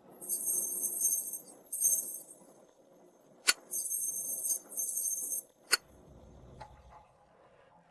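High metallic jingling, like small bells shaken, in four short bursts, with two sharp clicks between them.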